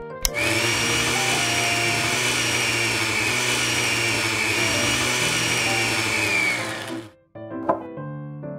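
Miniature battery-powered bottle blender running, with a steady motor whine that sags slightly just before it stops about seven seconds in.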